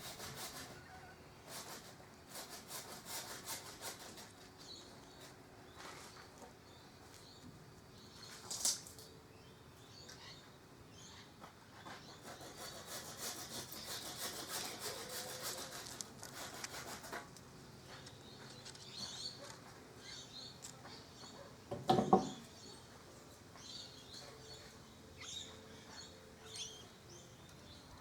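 Dog gnawing and scraping its teeth on a bone, a steady rasping chew with many small scrapes. A short, louder knock about three-quarters of the way through.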